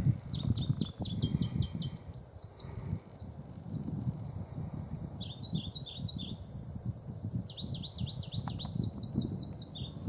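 Songbirds singing: overlapping runs of quick, repeated high chirping notes, one phrase after another. Beneath them are low, irregular thuds of footsteps on the trail.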